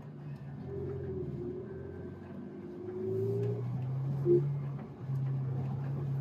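Car engine running under way, heard from inside the cabin, getting louder about three seconds in, with a short loud blip a little over four seconds in.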